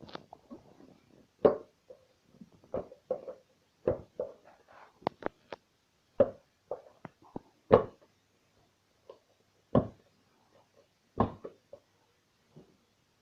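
Homemade glue slime being worked by hand: irregular short knocks and squelches, roughly one a second, as it is slapped and squeezed against a surface.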